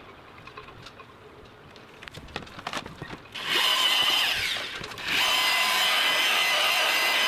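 Dual-action random orbital polisher starting up about three and a half seconds in, after a few light handling clicks. It eases off briefly, then runs steadily with a motor whine as the cutting pad works compound into the old fibreglass gelcoat.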